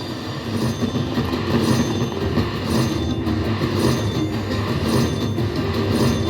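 Slot machine's electronic win sounds as the bonus win counts up, over the steady clatter and din of a casino floor.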